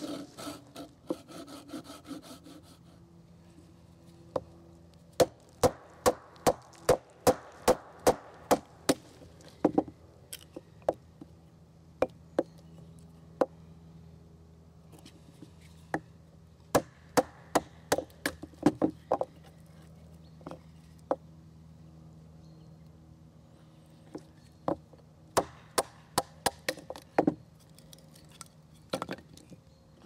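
Batoning kindling: a wooden baton knocks the spine of a knife blade driven into a log, in sharp runs of about two strikes a second with pauses between. There is some scraping of the knife against the wood near the start.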